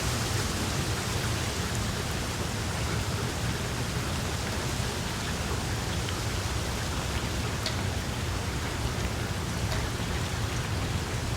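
Steady rain falling on tree leaves, a continuous even hiss with a few distinct drop taps now and then.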